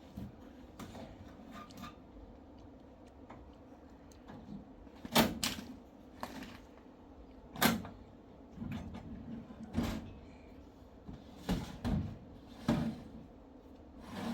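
About five sharp knocks or clatters at uneven gaps, starting about five seconds in, over a faint steady background.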